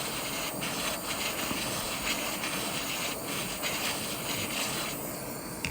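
Jeweller's soldering torch flame hissing steadily while it heats a ring coated in borax flux, with a few faint ticks as the flux bubbles and dries.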